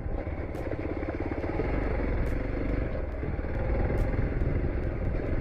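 Hero XPulse 200 4V's single-cylinder engine running as the motorcycle is ridden, with a few sharp clicks along the way.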